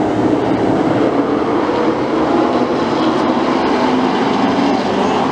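A pack of late model stock cars racing past, their V8 engines running at speed in a loud, steady drone.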